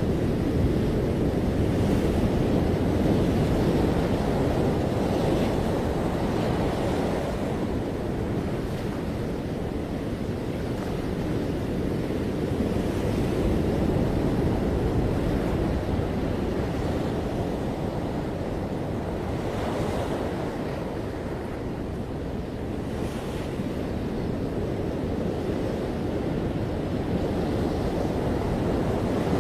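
Ocean waves breaking and washing on a beach, a continuous surf with slow swells and ebbs in loudness, with wind rumbling on the microphone.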